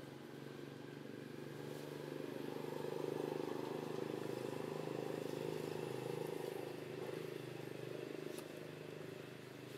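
An engine's steady low hum, growing louder for a few seconds in the middle and fading again, like a vehicle passing at a distance.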